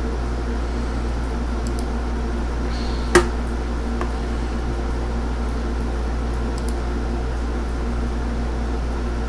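Steady low hum and fan noise from the computer, picked up by the microphone, with one sharp mouse click about three seconds in as the Save button is clicked.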